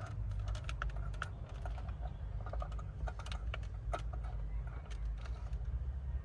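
Irregular light clicks and taps of small parts and tools being handled, over a steady low hum.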